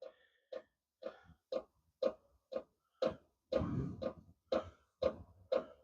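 Diesel heater's fuel dosing pump ticking steadily, about two ticks a second.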